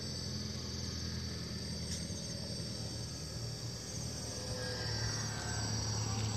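Insects chirping in a steady, rhythmic high trill, over a low drone from the model seaplane's motor that grows louder about five seconds in as the plane passes closer.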